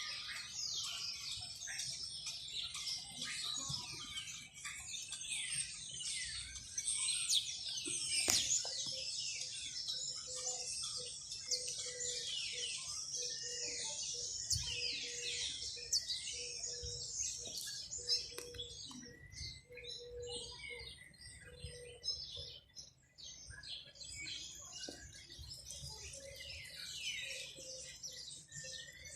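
Many small birds chirping and twittering at once in a dense, continuous chorus of quick high notes. The chorus thins briefly past the middle, and a faint steady low tone sounds beneath it for several seconds.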